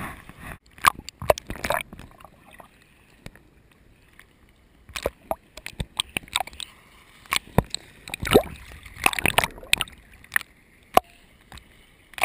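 Seawater sloshing and splashing around a waterproof camera held at the surface of shallow surf, with irregular sharp pops and splashes as it dips in and out of the water.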